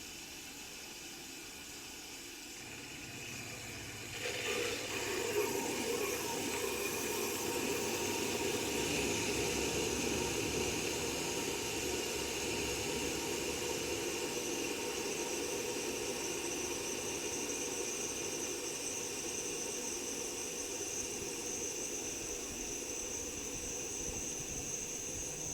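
RECHI 43W26SH single-rotary inverter compressor of a Sharp AU-J25XY air-conditioner outdoor unit, heard raw. A low hum comes in about two and a half seconds in, and the sound grows suddenly louder about four seconds in. It then runs steadily with a hiss and a high whine.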